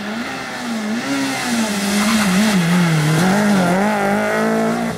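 Renault Clio rally car engine revving hard as it approaches and drives through a bend, its pitch rising and falling several times with throttle and gear changes. It grows louder from about a second in as the car nears.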